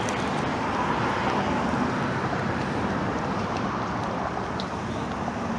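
Steady street traffic noise of cars going by.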